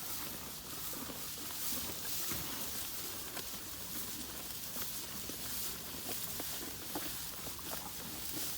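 Cattle eating hay: a steady rustling and crunching of dry hay as they pull at it and chew, made of many small crackles.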